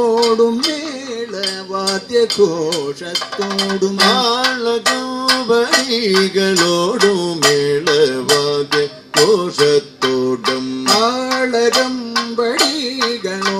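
Kathakali music: a male voice holds and bends long melodic notes over sharp, repeated chenda drum strokes and bright metallic cymbal strikes.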